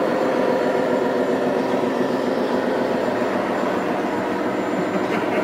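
Radio-controlled 8x8 tipper truck driving under load, with a steady engine-like running sound.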